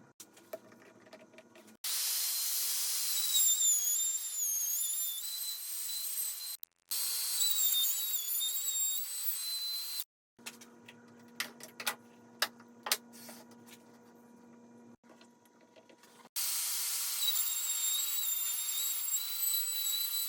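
Woodworking router running in three bursts of several seconds each, a high-pitched whine whose pitch wavers and dips as it cuts. Between the second and third bursts come scattered clicks and knocks of handling.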